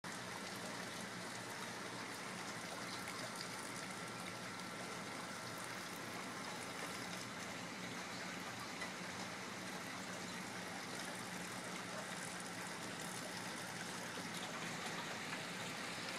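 Steady rainwater falling and running, an even hiss with no distinct drips or splashes.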